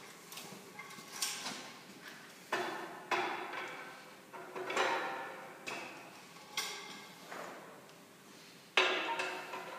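Irregular metal knocks and clanks as a mechanical sieve shaker's clamping top plate and rods are fitted down over a stack of test sieves, each knock ringing briefly; the loudest comes near the end. The shaker is not yet running.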